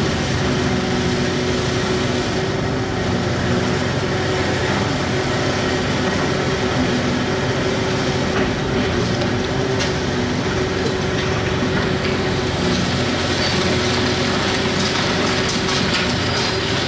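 Hitachi 670 LCH excavator's diesel engine running steadily at working revs, with a few sharp knocks in the second half and a brief high squeal near the end.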